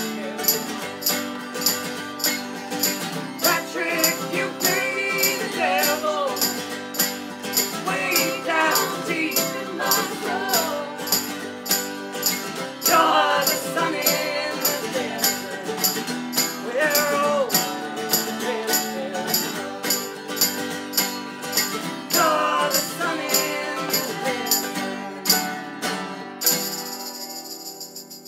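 Live acoustic folk song: a strummed acoustic guitar and a mandolin with several voices singing in harmony, over a rattling percussion beat at about two to three strokes a second. Near the end the beat stops and the music drops quieter.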